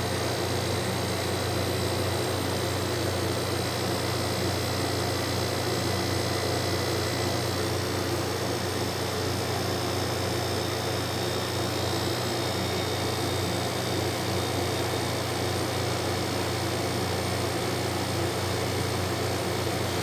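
Compressor of a TCL window-type air conditioner running with a steady low hum. It has been started by bypassing its thermostat, the fault that kept it from running.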